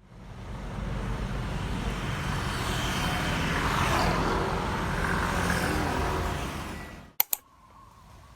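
A motor vehicle passing, its noise swelling and then fading away, followed by two sharp clicks near the end.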